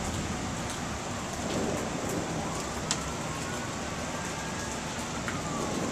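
Steady rain falling hard in a thunderstorm, an even hiss with scattered drips ticking, and one sharper tick about three seconds in.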